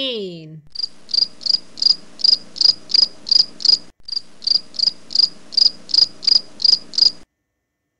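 Cricket chirping: evenly spaced short high chirps, about three a second, over a faint low steady hum. They break off briefly about four seconds in and stop about a second before the end.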